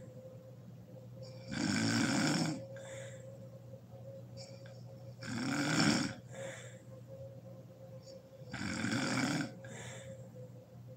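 A sleeping woman snoring: three loud snores about three and a half seconds apart, each followed by a softer breath out. A faint steady hum runs underneath.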